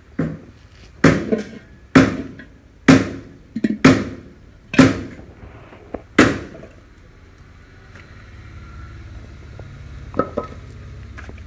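Hammer blows on metal: about seven sharp strikes roughly a second apart, each ringing briefly, stopping a little past the middle, with a low steady hum underneath.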